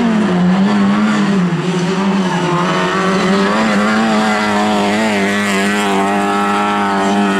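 Lada 2107 rally car's engine running at high revs as it slides through the turns of a dirt track. The pitch drops at the start, wavers and dips about two seconds in, then holds steady.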